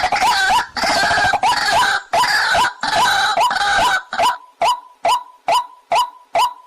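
Waterhen calls, likely a recorded lure call: a busy run of overlapping calls for about four seconds, then a single short call repeated evenly about twice a second.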